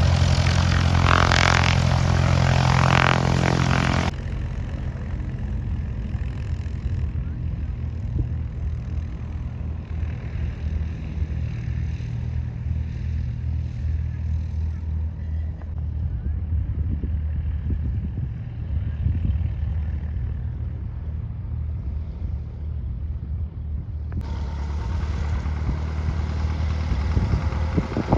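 An engine idling steadily with a low, even hum, louder for the first four seconds and then quieter.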